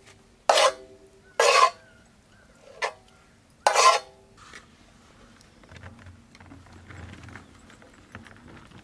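Metal ladle clanking against a large iron cooking pan while an egg stir-fry is tossed: four sharp, ringing strikes in the first four seconds, then quieter scraping and rustling.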